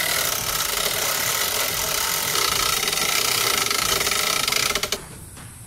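Lucas Mill portable swing-blade sawmill running: its engine-driven circular blade is fed through a log, cutting boards. The steady, loud whine cuts off sharply about five seconds in.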